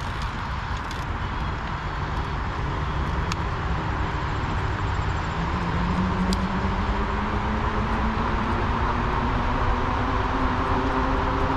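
Wind and road noise of a fat-tire e-bike being ridden, growing slowly louder. A faint whine rises slowly in pitch from about halfway in.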